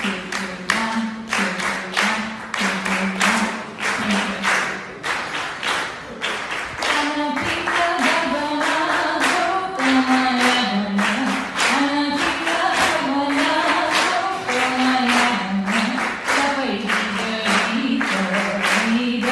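A woman singing unaccompanied into a microphone over a steady beat of hand claps, about two a second. The sung melody comes out more clearly from about seven seconds in.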